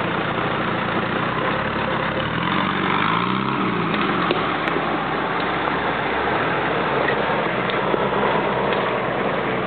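Nissan Patrol 4x4 engine running as it crawls up a rocky dirt track, briefly revving up and back down about three seconds in.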